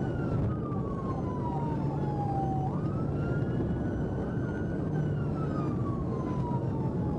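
Police siren wailing: the pitch slides slowly down, jumps back up about two and a half seconds in, holds, then slides down again. Underneath is the steady drone of a patrol car's engine and road noise at highway speed, heard from inside the car.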